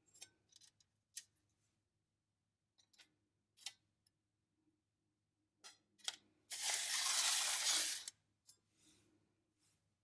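Small clicks and taps of a stylus against the stamped-tin disc of an Adall disc adder, then about a second and a half of steady metal scraping as the disc is turned with the stylus. The scrape is the loudest sound.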